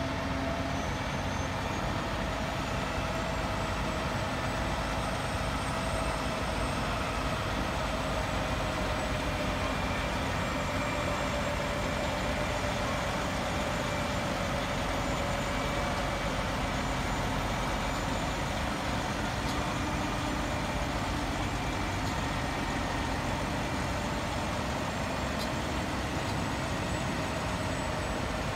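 Heavy semi-truck's diesel engine running steadily as it slowly hauls an oversize load past, a constant hum with no sudden changes.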